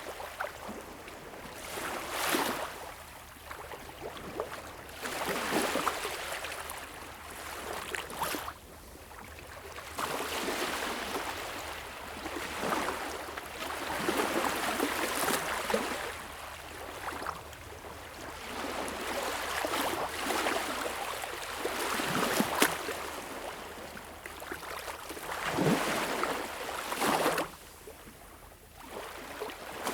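Small, calm waves lapping and washing onto a beach shore, each swell of splashing hiss rising and fading every few seconds.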